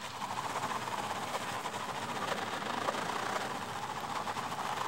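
Car tyres fitted with snow chains rolling over wet pavement: a steady rattling noise with faint quick ticks.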